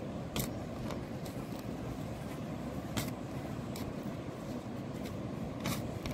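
A steel shovel blade being driven into turf and stony soil, with three sharp knocks as the blade strikes, about every two and a half seconds, over a steady low background rumble.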